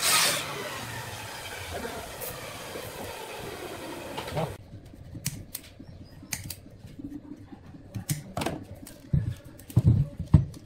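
Plastic cable ties being drawn tight around a wood blank on a workbench: a steady rasp for about the first four seconds that stops suddenly, then scattered clicks and a few knocks of the wood on the bench near the end.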